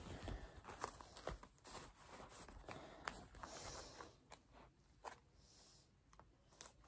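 Faint handling noise from a small wallet being opened and turned in the hands: light clicks and soft rustles for the first few seconds, then near silence.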